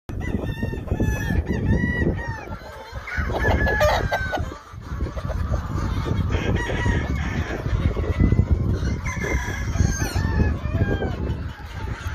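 Gamefowl roosters crowing and clucking in repeated calls throughout, over a steady low rumble.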